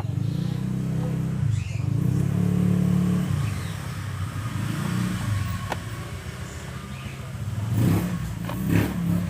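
An engine running and being revved, its pitch rising and falling over several seconds, with a few sharp clicks near the end.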